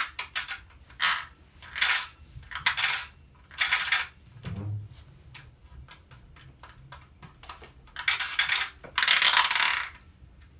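Metal scrap parts being handled: repeated clinks and rattles of small metal pieces, with several short scraping or rattling bursts, the longest near the end.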